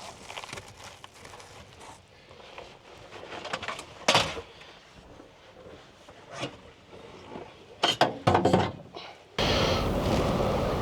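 Inside a truck cab with strong wind outside: quiet, muffled wind with a sharp knock about four seconds in and a few clicks and knocks around eight seconds, then a sudden loud rush of wind noise near the end.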